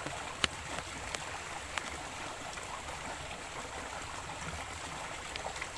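Steady rush of a small river's flowing water, with a few sharp clicks, the loudest about half a second in.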